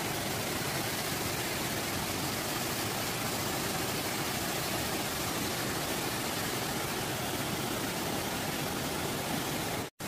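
Steady rushing of a waterfall, the Allerheiligen Waterfalls' cascade pouring into a rocky pool, cut off for an instant near the end.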